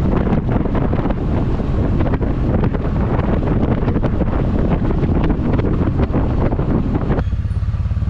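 Heavy wind buffeting on the microphone of a moving motorcycle. Near the end the wind noise cuts off suddenly and the motorcycle engine is heard running steadily at low speed.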